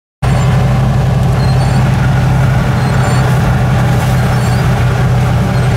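Turbocharged Chevrolet Suburban driving on a snowy road, heard from inside the cabin as a steady, loud low engine and road drone. The audio drops out for a moment right at the start.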